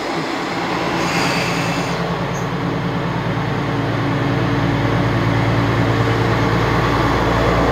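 Diesel railcar running, its low engine drone growing steadily louder, with a tone that rises slightly near the end.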